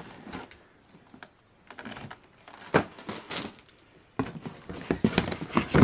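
Hands rummaging among plastic toiletry bottles in a cardboard box: scattered clicks and knocks of plastic and cardboard, growing busier from about four seconds in.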